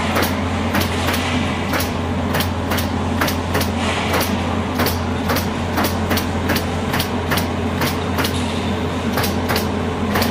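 Automatic pallet nailing machine's pneumatic coil nailers firing nails into pallet boards, sharp shots about three a second over a steady machine hum.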